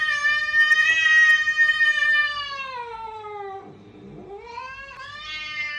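A puppy howling: one long, held howl that sinks in pitch and dies away about three and a half seconds in, then a second howl rising in near the end.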